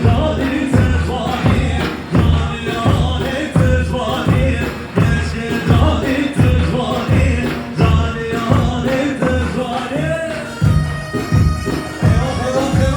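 Loud Kurdish wedding dance music: a steady drum beat about two strokes a second under a reedy, bagpipe-like wind melody.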